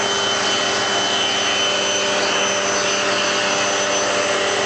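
Vacuum cleaner running steadily with a constant whine, held against a dog's coat to vacuum it.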